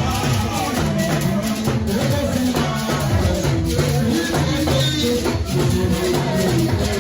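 Music with a busy bass line stepping between notes and a steady percussive beat.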